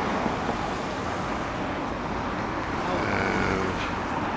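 Steady road-vehicle noise, a continuous rumble and hiss with no breaks.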